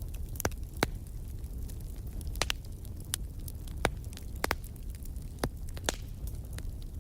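Wood fire burning in a fireplace: a steady low rumble with sharp, irregular crackles and pops of the burning logs.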